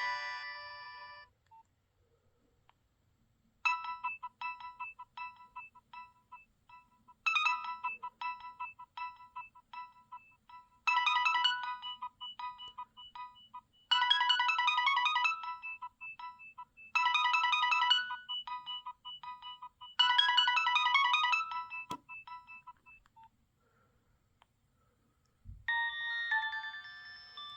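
Nokia 6030 mobile phone ringtones. The tail of one tone ends about a second in. After a short pause a bright melody plays in repeating phrases about every three seconds for some twenty seconds, then stops. Near the end a click comes just before the next ringtone starts.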